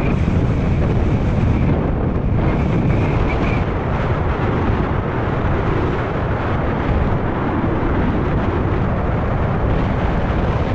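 Mountain bike running fast down loose volcanic gravel: tyres crunching and rattling over stones, with heavy wind rushing over the camera's microphone. A thin high squeal sounds briefly at the very start and again from about two and a half seconds in.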